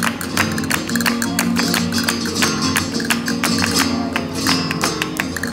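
Live flamenco: an acoustic guitar played with dense, rhythmic hand-clapping (palmas).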